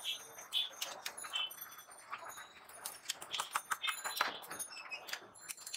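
Metal spatula and slotted spoon clinking and scraping against a pan of hot oil as kheta puri are turned and lifted, with a hiss of frying oil underneath. The clinks come irregularly, several a second, some with a short metallic ring.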